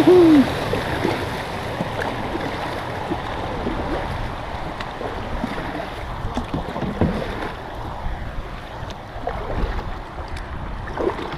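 Kayak paddles dipping and splashing, with water washing along a plastic sit-on-top kayak's hull as it is paddled: a steady rushing with small irregular splashes.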